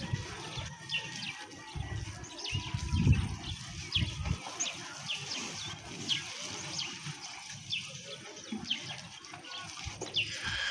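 Small birds chirping: short, quick, falling chirps repeated about once or twice a second, over an uneven low rumble that is loudest about three seconds in.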